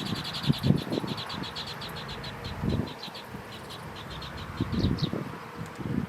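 A small bird calling in a rapid series of short high chirps, about eight a second at first, then slower and more scattered until it stops about five seconds in. Soft low thumps and rustles come in between.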